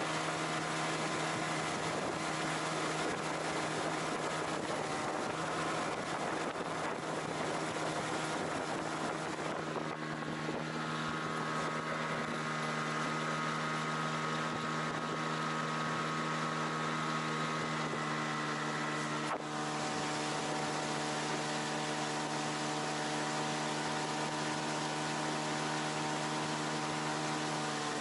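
Tohatsu outboard motor running steadily under way, with the hiss of the wake and wind over it. Its tone shifts slightly about ten seconds in and again with a sharp click a little past two-thirds through.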